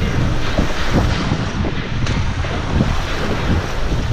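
Wind buffeting the microphone over the wash of waves around a small boat at sea, with a steady low rumble and scattered small knocks.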